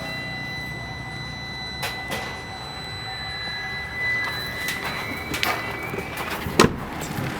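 Mitsubishi Pajero Sport's 2.5-litre diesel engine idling with a steady low hum, with a few sharp clicks, the loudest about six and a half seconds in, and a faint tone slowly gliding up in the middle.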